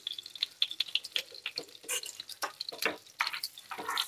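Butter and ghee sizzling in a frying pan with fried onions just added, crackling in short, irregular pops. A spoon starts stirring in the pan near the end.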